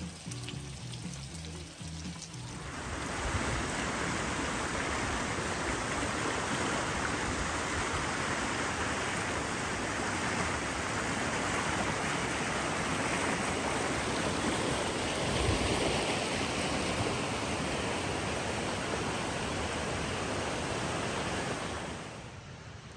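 Shallow creek water rushing over rocks, a steady wash that comes in about two seconds in and cuts off shortly before the end. Soft music is heard under light rain at the start.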